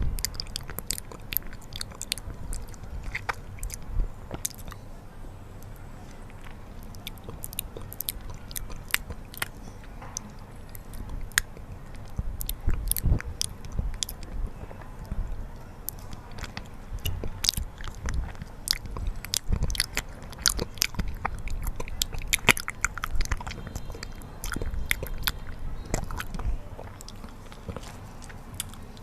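Close-miked chewing and eating of honey, with many sharp, irregular mouth clicks.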